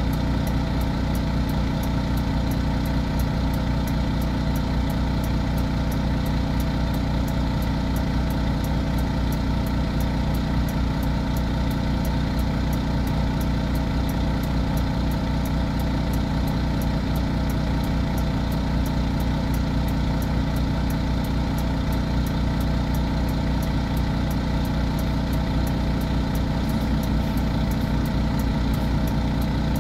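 Semi-truck diesel engine idling steadily, a constant low hum heard from inside the cab.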